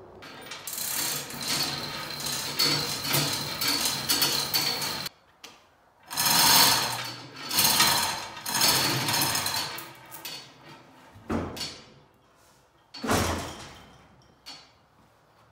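Hand chain hoist being worked to lower a steel ballast tank, its chain rattling through the hoist in long runs for the first several seconds, then in three more bursts. Near the end, two sharp metal clunks as the tank settles into the chassis frame.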